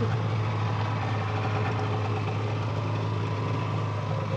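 Snowmobile engine idling steadily at a low, even hum.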